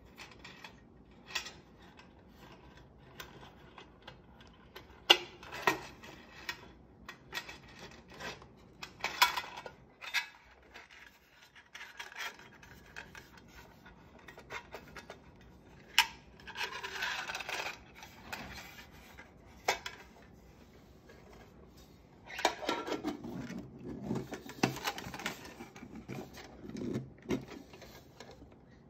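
Hands handling a titanium lunchbox and its silicone seal ring: scattered sharp metal clicks and taps, with longer stretches of rubbing and scraping about halfway through and again toward the end.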